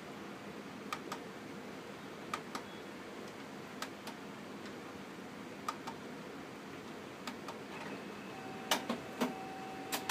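Plastic control-panel buttons on an HP Color LaserJet 2600n clicking as they are pressed, mostly in quick press-and-release pairs about every second and a half. About eight seconds in, once Cleaning Mode has been chosen, the printer's mechanism starts up with a steady whine and a few louder clacks.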